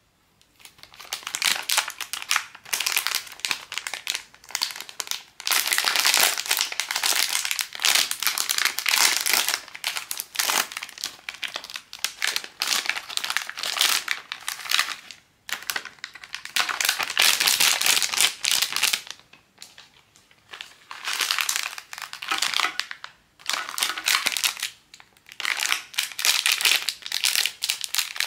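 Packaging crinkling and crumpling as it is handled and opened by hand, in repeated bursts with short pauses between them.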